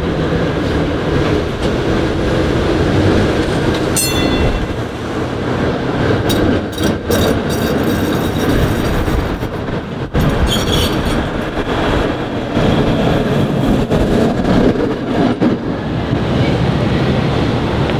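PCC streetcar rolling past on street track, with a steady rumble of wheels and motors. A brief high wheel squeal comes about four seconds in, a run of sharp clacks from the wheels on the rails around six to eight seconds, and another short squeal near eleven seconds.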